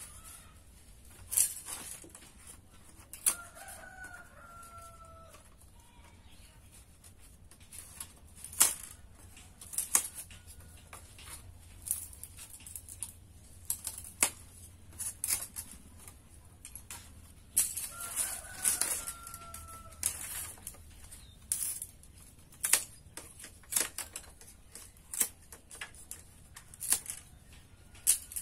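Sharp irregular clicks and knocks from bamboo being worked by hand, with a rooster crowing twice in the background, each crow a long held call.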